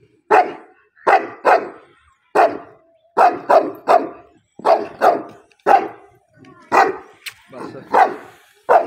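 A large dog barking repeatedly: about a dozen short barks at irregular spacing, roughly one or two a second, some coming in quick pairs.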